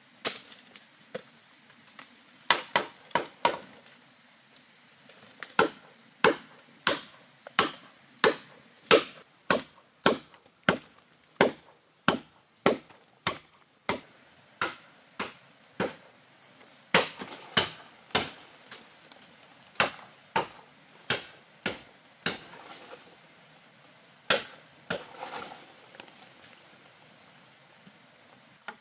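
Machete chopping into the base of a green bamboo culm: a long run of sharp hacks, roughly one every half second to second, broken by a few short pauses.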